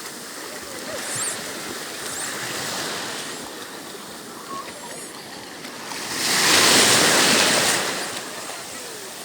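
Sea waves washing onto the shore, with one wave breaking loudly from about six seconds in until nearly eight seconds. A few faint, short high chirps sound in the first half.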